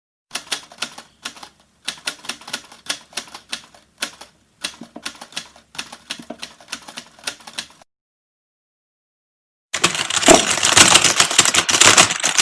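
Sound effect of rapid, irregular clicks in runs with short gaps for about seven seconds. After a two-second pause, a louder, dense clatter for the last three seconds.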